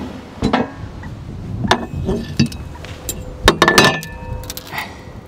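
A string of sharp metallic clinks and knocks, with a dense, loudest cluster a little past halfway and brief ringing after some of them: a tape measure and metal fittings being handled on the boat's roof.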